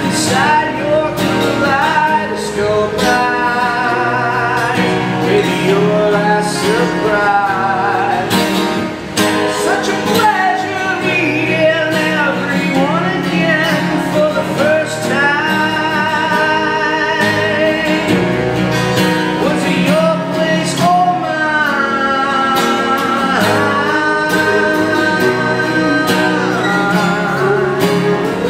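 A band playing a song live: singing over guitar and a steady beat.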